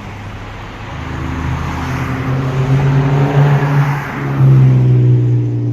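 Car engine running under load, its hum rising slightly in pitch, with a brief dip about four seconds in before it settles steady again.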